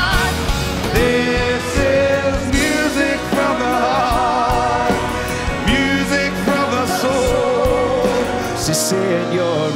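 A choir and a lead singer performing a song live with a band, the sung notes wavering with vibrato. The bass drops out near the end.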